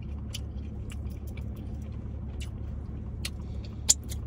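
Steady low hum of a car cabin with the engine and air conditioning running, over small scattered clicks and smacks of someone eating crawfish, with one sharper click near the end.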